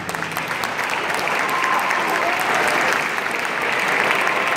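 Audience applauding at the end of a choral song, the clapping getting a little louder after about a second.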